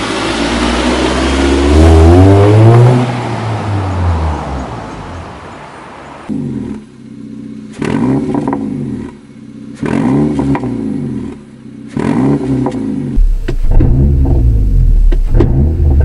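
A loud car engine sweeps up and falls away, then a Honda Civic FN1 with its rear silencer deleted revs again and again, about every two seconds. Each rev drops back with sharp pops and crackles from the exhaust, and near the end a heavy low rumble comes in as the car drives under load.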